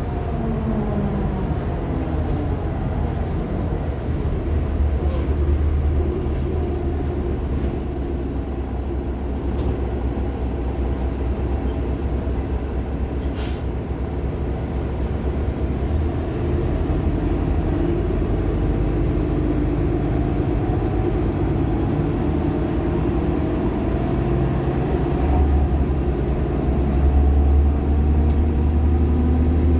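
2015 Nova LFSA hybrid articulated bus (Cummins ISL 9 diesel with Allison H50 EP hybrid drive) riding with a steady low drone. The drive's pitch falls just after the start as the bus slows, then rises again near the end as it pulls away. There is one sharp click about 13 seconds in.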